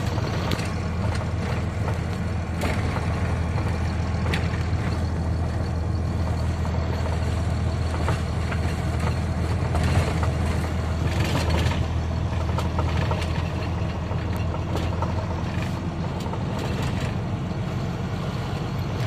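Dump truck's diesel engine droning steadily, heard from inside the cab, as the truck rolls down a grade held on its exhaust brake, which the driver finds rather weak. Scattered short knocks and rattles from the truck over the gravel road.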